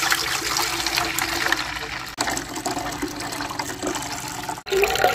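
Sugarcane juice poured in a steady stream from a plastic bucket through a steel mesh strainer into an aluminium pot, splashing as the pot fills, with a short sudden break near the end.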